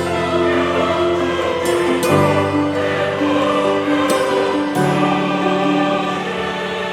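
Background music with a choir singing sustained chords, the notes changing every second or two.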